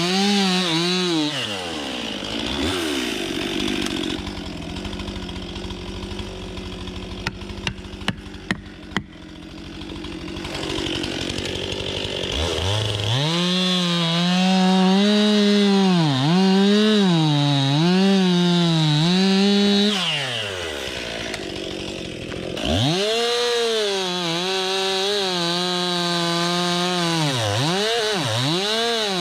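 STIHL MS 261 two-stroke chainsaw revving high, then dropping to a low idle for several seconds with a few sharp clicks. It climbs back to full throttle about halfway through, its pitch dipping again and again as the bar bogs in the cut. It eases off briefly, then revs up again near the end.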